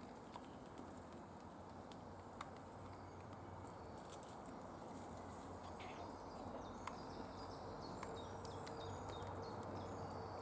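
Faint woodland ambience with short high bird chirps, mostly in the second half, and scattered light ticks and taps.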